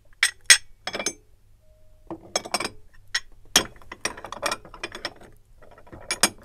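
Bunzlau Castle stoneware soap dishes and small dishes clinking and knocking against each other as they are handled and set down in a wooden tray: a run of sharp short clinks in small clusters with brief pauses between them.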